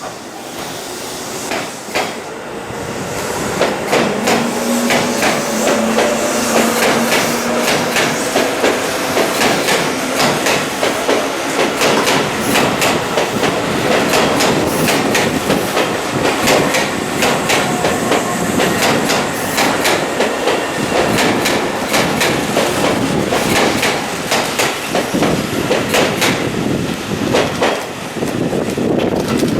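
Tobu 8000-series electric train running, its wheels clattering in rapid, irregular clacks over rail joints and pointwork. In the first several seconds a faint whine from the motors and gears rises in pitch as it picks up speed.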